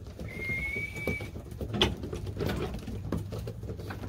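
Pigeons in a wooden loft cooing and pecking at feed, with light scattered taps of beaks and feet on the boards and one sharper knock about two seconds in. A thin steady high tone sounds for about a second near the start.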